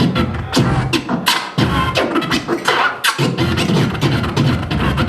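Hip-hop instrumental beat played loud, with sharp drum hits in a steady rhythm over a heavy low end.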